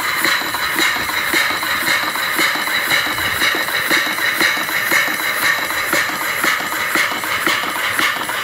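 Small antique reversing steam engine (2.5-inch bore, 5-inch stroke) running on compressed air at about 25 psi: a steady hiss of air with a regular beat from the strokes and the moving rods and valve gear.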